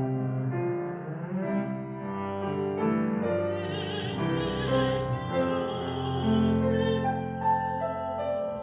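Classical chamber music: a woman singing in an operatic style with vibrato, over piano and a double bass holding long low notes.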